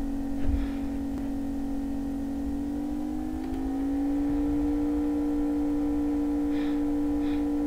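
Steady humming drone of a running motor. About three and a half seconds in, its pitch steps up slightly and it gets a little louder, then it holds steady.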